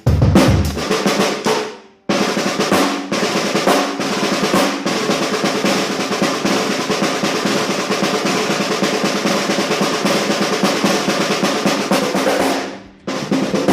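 Mapex Maple 14×8 snare drum, tuned fairly high with its muffler engaged, played without a microphone. A few ringing strokes over a low thump come first, then a sustained snare roll of about ten seconds with a few accents. The roll dies away and one last stroke follows.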